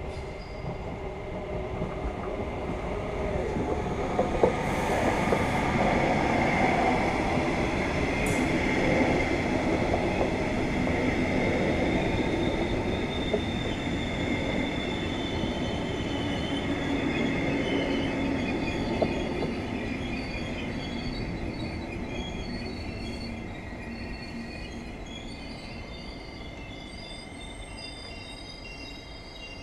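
Red double-deck regional train passing along the track, a rumble that grows loud over the first several seconds, holds, then fades as it goes away. A thin steady high tone runs under it, and high squealing tones from the wheels come in during the second half.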